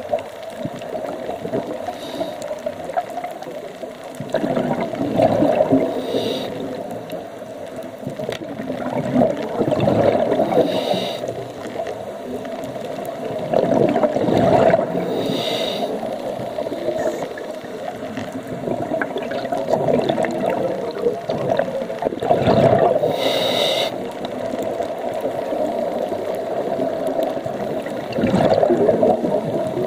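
Scuba diver breathing through a regulator underwater: a short hiss on each inhale and a burst of bubbling exhaust on each exhale, repeating about every four to five seconds.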